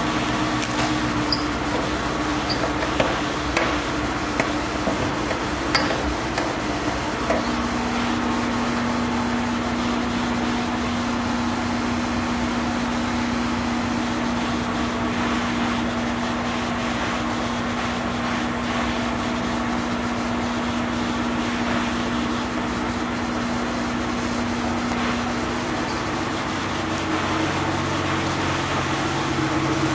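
Steady machine hum with a low drone whose pitch shifts about seven seconds in, and scattered light clicks and knocks during the first seven seconds.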